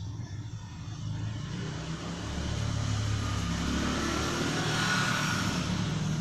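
A motor vehicle engine running, its sound swelling over a few seconds to a peak near the end, as of a vehicle passing by.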